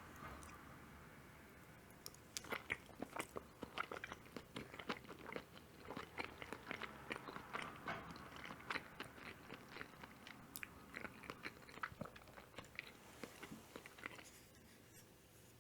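Close-miked chewing of mushroom carbonara: a dense run of quick wet mouth clicks and smacks, starting about two seconds in and dying away near the end.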